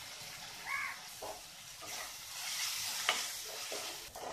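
Sliced onions sizzling in hot oil in a metal karai, with a wooden spatula scraping and stirring them against the pan a few times.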